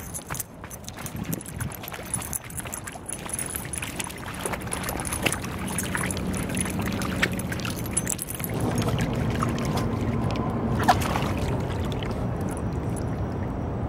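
A small papillon dog wading through a shallow rain puddle, the water sloshing and splashing around its legs. The splashing gets louder about halfway through.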